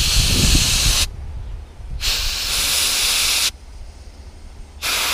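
Compressed air from a blow gun hissing in three blasts as it is blown backwards through an outboard motor's fuel strainer, purging the fuel out of it. The first blast stops about a second in, the second lasts about a second and a half, and a short third comes near the end.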